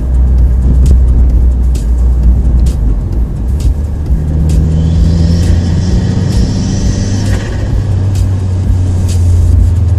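Car driving, heard from inside the cabin: a steady, loud low drone of engine and road noise with scattered light knocks. About four seconds in, a few held higher tones join for several seconds.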